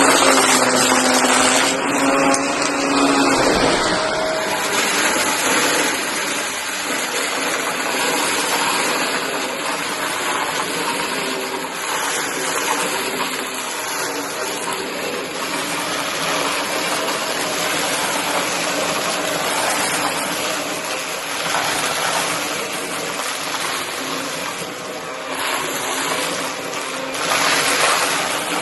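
Shark vacuum cleaner running steadily, sucking up scraps of cardboard, with a humming tone in the motor noise for the first few seconds.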